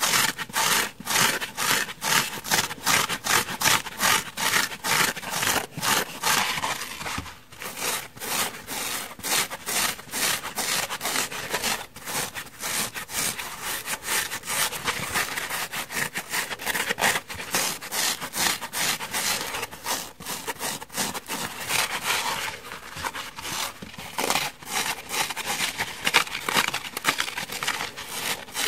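Fingernails scratching the foam of kitchen sponges in quick repeated strokes, a dry rasping hiss at about three strokes a second at first, then a denser, more continuous scratching.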